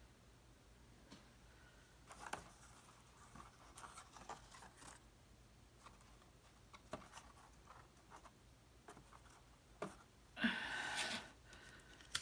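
Cardstock pieces being handled: scattered light clicks, taps and rustles, with a louder rustle or scrape lasting about a second near the end.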